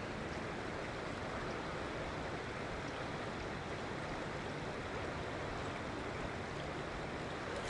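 Steady rush of fast-flowing river current.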